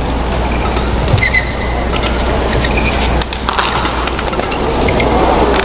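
Badminton rally: rackets strike the shuttlecock with sharp clicks, and court shoes squeak briefly on the court mat, over steady arena crowd noise.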